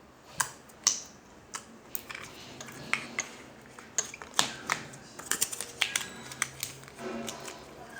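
Slime being squeezed and poked, giving off irregular sharp clicks and pops, coming thicker toward the end.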